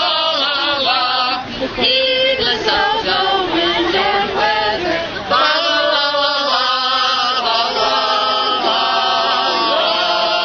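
A mixed group of carolers, men and women, singing together without instruments.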